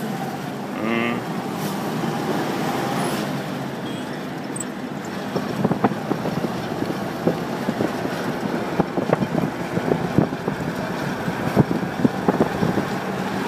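Car driving along a road, its engine and road noise heard from inside the cabin. From about five seconds in, frequent short knocks and rattles join the steady rumble.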